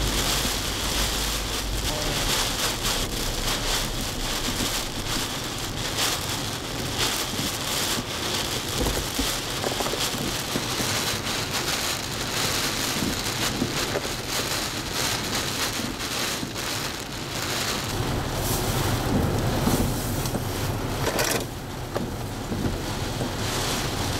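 Hurricane wind and heavy rain: a loud, steady rushing noise, swelling and easing in gusts, with many short crackling spatters.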